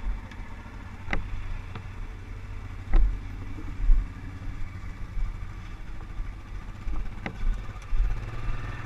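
ATV engine running steadily at low revs, with a few sharp knocks and two louder low thumps about three and four seconds in.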